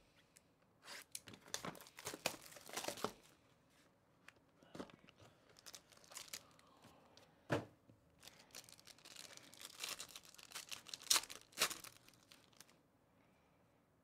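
Packaging of a 2024 Topps Tier One Baseball hobby box being torn open by hand: bursts of tearing and crinkling from the box and its foil-wrapped pack, with one sharp snap about seven and a half seconds in.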